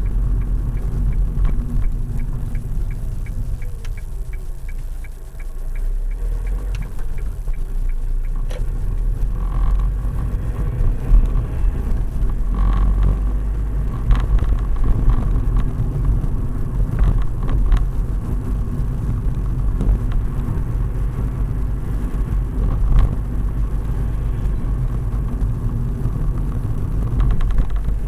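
Car driving along a road, heard from inside the cabin: a steady rumble of engine and tyre noise. For the first several seconds a turn-signal indicator ticks at an even pace, then stops.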